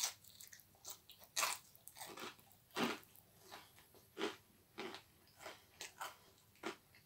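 A person biting into a slice of pizza and chewing it: a bite at the start, then short, irregular crunches and mouth sounds about twice a second.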